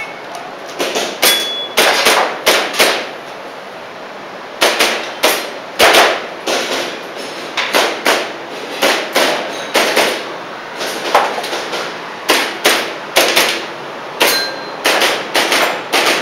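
Airsoft pistol firing in quick strings, its pellets clanging and ringing on steel plate targets. A pause of about a second and a half comes near the start, then the strings resume.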